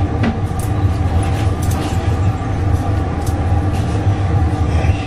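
Steady low hum and roar of running workshop machinery, with a few light clicks and taps as the metal rod touches the glass.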